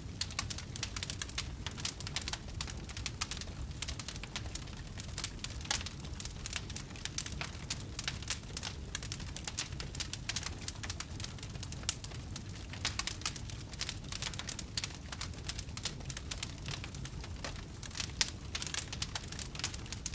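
Wood campfire burning, with dense irregular crackles and pops over a low, steady rumble of flame.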